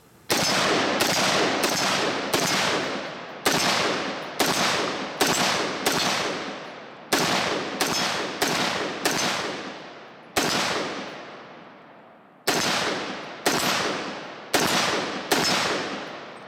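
HM Defense HM15 Commander MB5 AR-15 rifle fired in rapid semi-automatic strings: about twenty shots, roughly one every half second to second, with short breaks between groups. Each shot trails off in a long echo.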